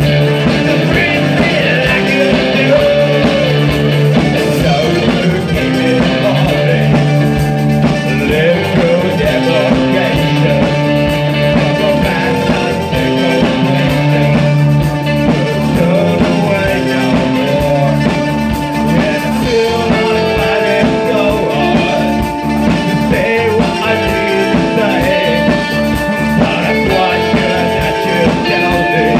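Live new wave rock band playing amplified: electric guitars, bass guitar and drum kit with a steady beat, with lead vocals over them.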